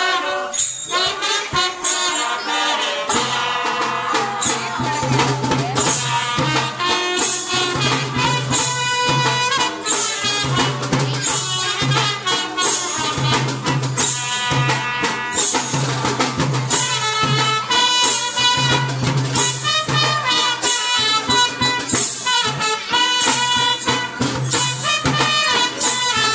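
Devotional bhajan music: jingling hand percussion and a drum keep a steady beat under a melody line, over a low held note that keeps coming and going.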